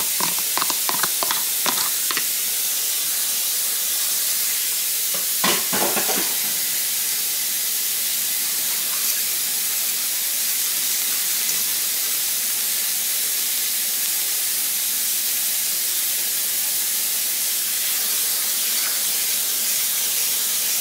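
Broth-and-cornstarch sauce sizzling steadily in a hot skillet as it thickens, with the clatter of stirring against the pan in the first two seconds and again about five and a half seconds in.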